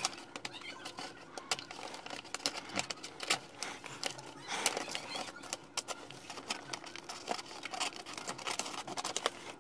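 Paper being handled and worked with scissors in a sped-up recording: an irregular run of crinkles, taps and clicks, with a longer rustle near the middle.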